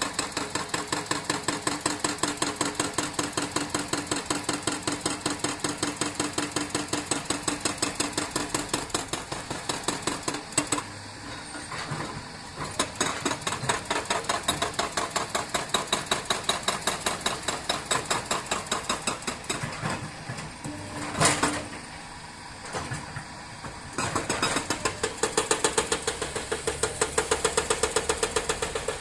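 A construction machine's engine running with an even, rhythmic knocking pulse of about four to five beats a second. A single sharp, loud knock about twenty-one seconds in, and the pulse grows louder from about twenty-four seconds.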